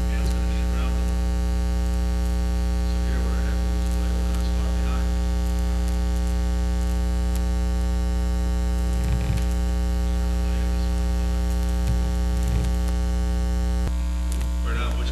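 Steady electrical mains hum with many evenly spaced overtones, loud and unchanging, with a slight shift in its lower part near the end.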